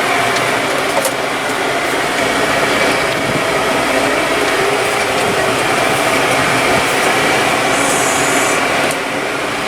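Hay bales being handled and loaded onto a trailer, with straw rubbing and scraping, over a steady running engine.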